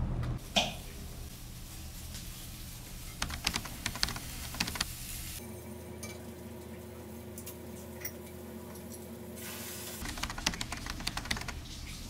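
Stovetop cooking: quick, light clicks and clatter of a utensil working a frying pan as meatballs are stir-fried in tomato sauce, in two busy spells, about three seconds in and again around ten seconds.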